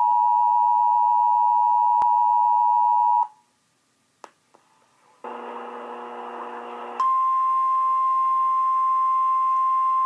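Emergency Alert System two-tone attention signal playing through laptop speakers, a steady two-note chord that cuts off about three seconds in. After a short gap and a brief burst of other audio, a single steady higher tone, the National Weather Service's 1050 Hz weather-radio alert tone, starts about seven seconds in and holds.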